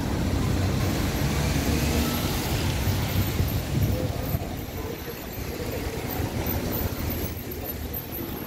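Cars and a small truck passing close by on a wet road: engine rumble under the hiss of tyres on the wet surface. It is louder for the first half and eases off a little after about four seconds.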